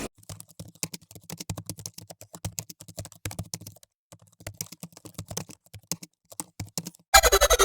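Rapid, irregular light clicks with a brief pause partway through; music comes back in abruptly near the end.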